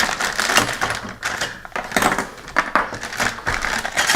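Small plastic mount accessories and their packaging being handled: a quick, irregular run of light clicks and rattles.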